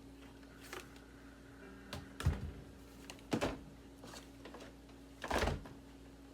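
A handful of separate knocks and clunks from objects being handled and put down, the loudest about two seconds in, over a faint steady hum.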